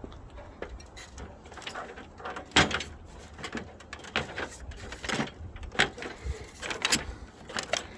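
Scattered, irregular knocks and clicks over a low rumble.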